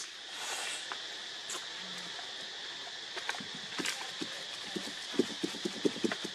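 A steady high hiss with scattered sharp clicks, and a quick run of light taps, several a second, near the end.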